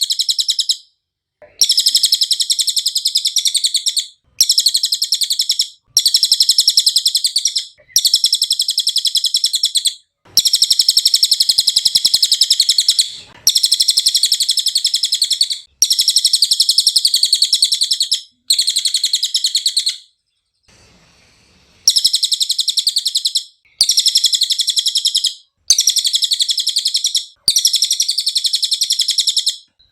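Cililin, a small hanging parrot, singing in fast, high-pitched chirping trills. The phrases last about two seconds each and repeat with short pauses, with a longer pause about two-thirds of the way through.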